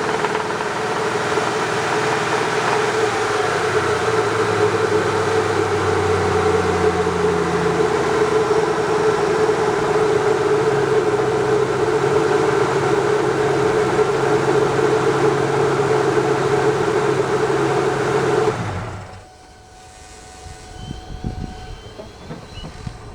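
2001 Mustang SVT Cobra's 4.6-litre DOHC V8 running steadily with a strong steady whine in it, an engine the owner suspects has a spun rod bearing. It shuts off suddenly about three-quarters of the way through, leaving only faint clicks.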